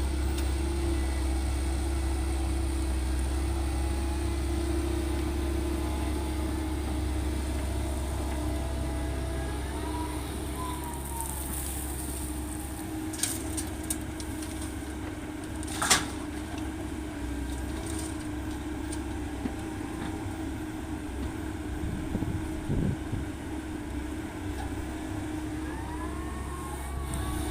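Diesel engine of a Komatsu PC130-8 hydraulic excavator running steadily under load while it digs and loads laterite, with a few clanks and one sharp knock about halfway through.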